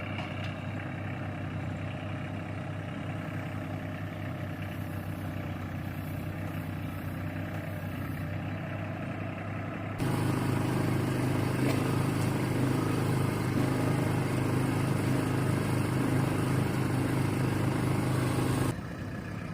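An engine running steadily at a low pitch, which turns abruptly louder about halfway through and drops back down near the end.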